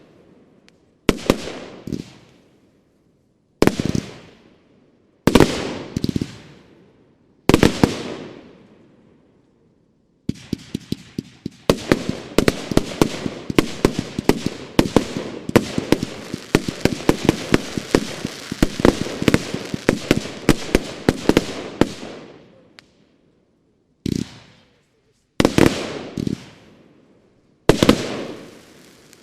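Broeckhoff Sylvester Mainframe compound firework battery (25 and 30 mm shells) firing. It starts with single bangs a second or two apart, each trailing off in echo. Then comes a dense rapid-fire volley lasting about twelve seconds, and three more single bangs near the end.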